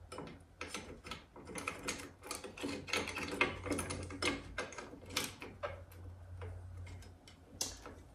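Flathead screwdriver levering between the brake pads of a snowbike kit's caliper to spread them apart: irregular metal clicks and scrapes, several a second.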